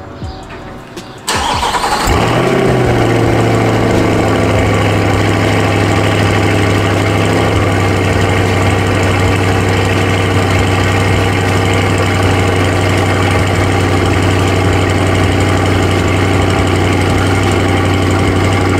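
A Corvette C8's 6.2-litre V8 breathing through the factory Z51 performance exhaust starts up about a second in and flares briefly. It then settles into a steady idle.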